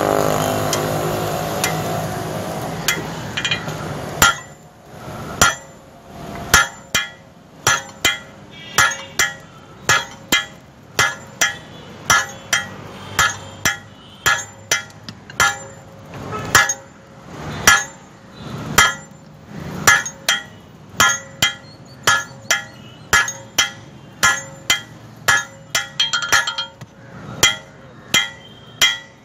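Blacksmith's hand hammer forging steel bar on an anvil: steady blows about one a second, each with a short metallic ring, starting about four seconds in. Before that a loud steady rumble dies away.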